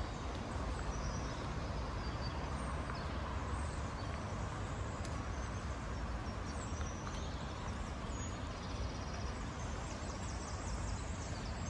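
Steady outdoor ambient noise with a low rumble and a few faint high chirps.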